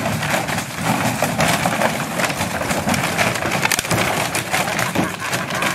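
Empty plastic bottles and jugs crackling, crunching and clattering continuously as a dog moves through a wire cage filled with them.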